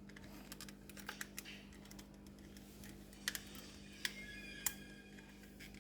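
Faint, scattered small clicks and taps, a few of them sharp, as an 8 GB DDR4 laptop RAM module is handled and fitted into the laptop's memory slot, over a faint steady hum.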